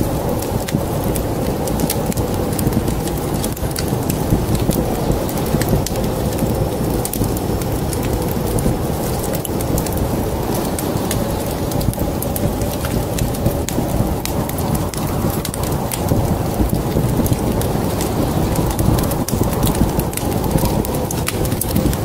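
Wood fire crackling in a fireplace, with many small sharp pops over a steady low rumble.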